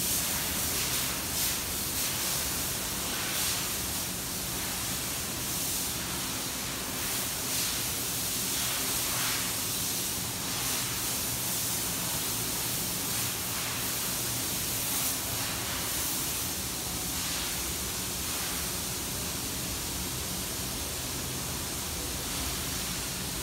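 Steady rushing air noise with a faint low hum, from a large pedestal fan running in the shop.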